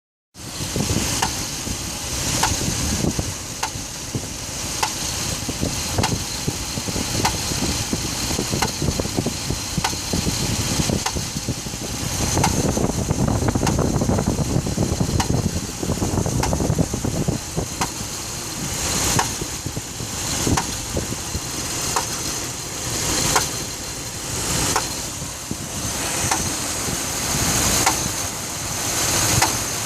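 2006 Dodge Ram 1500's 5.7 L Hemi V8 running on a cold block with a knocking noise the owner cannot identify; it appears only while the engine is cold and sets no engine light. A sharp click comes at an even beat, a little more than once a second.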